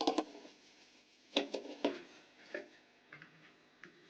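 Scattered light clicks and taps, about eight, irregularly spaced, from handling and working on the plastic housing of a cordless screwdriver as it is taken apart.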